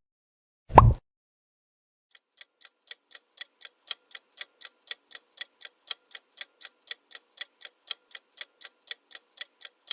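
A short, loud pop sound effect, then a clock ticking evenly about four times a second, a quiz countdown timer.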